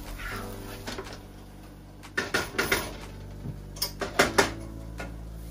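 Wooden spoon and pans clattering on an electric stovetop as a frying pan's contents are stirred: a run of sharp knocks about two seconds in and another about four seconds in.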